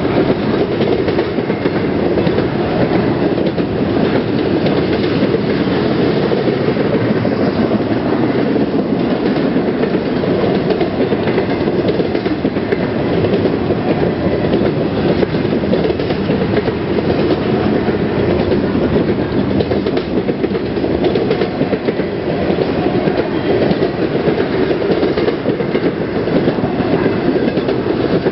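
Norfolk Southern freight train's cars rolling past at speed: a loud, steady rumble of steel wheels on the rails with a continuous clickety-clack.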